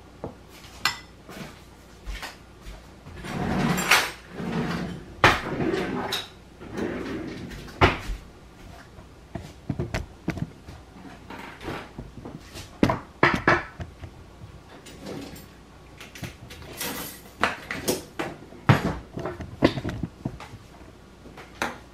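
A metal spoon scraping and clinking against a ceramic bowl and small glass jars as thick cream is scooped out and spooned into the jars, with scattered sharp knocks of glass and crockery on the counter.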